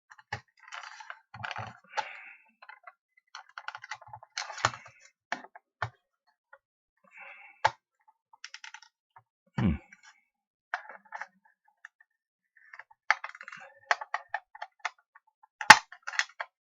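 Plastic clicks and scraping as the catches of a burglar-alarm sensor's plastic case are worked at by hand, with a dull knock about ten seconds in and one loud click near the end.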